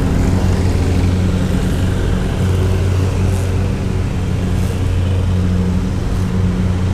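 Landscapers' gas-powered equipment running steadily and loud: an even low engine hum with a rushing hiss above it.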